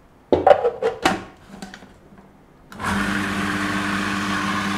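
A few knocks as the food processor's plastic lid is fitted, then about three seconds in its motor starts and runs steadily with a hum, blending boiled chickpeas with cold water into a paste for hummus.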